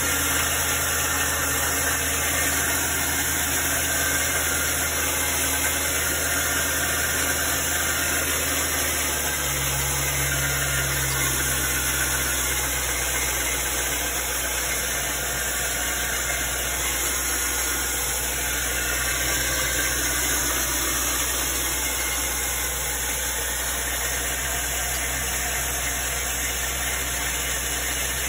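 2001 Jaguar XK8's 4.0-litre V8 idling steadily after a cold start, its low hum shifting about nine seconds in. The engine noise is what the owner suspects is the XK8's known timing chain tensioner problem.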